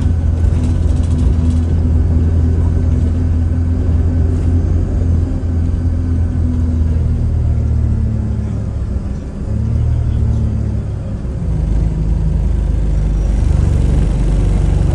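Alexander Dennis Enviro200 bus's diesel engine and drivetrain heard from inside the passenger saloon: a steady low drone whose pitch shifts several times as the bus changes speed, dipping briefly about nine seconds in.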